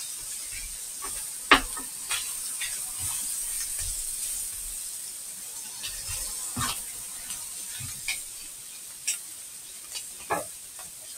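Diced bacon, ham and onion sizzling with soy sauce in a frying pan, with a steady high hiss. A utensil knocks against the pan now and then as it is stirred, loudest about a second and a half in.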